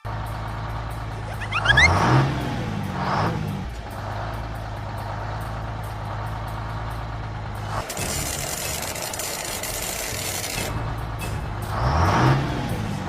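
Heavy vehicle engine running steadily, swelling twice with rising and falling pitch, about two seconds in and again near the end.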